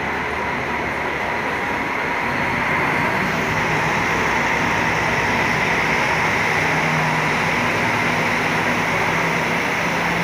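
Diesel engine of a double-decker coach running as the coach pulls away from its bay, over steady traffic noise. A low engine drone grows louder about three seconds in.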